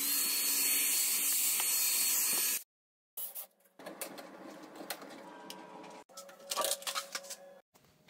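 Moosoo K17 Pro cordless stick vacuum switched to high power: its brushless motor's whine climbs in pitch, then runs steady with a loud rush of suction for about two and a half seconds before cutting off abruptly. After that come quieter scattered plastic clicks and knocks as the vacuum is handled.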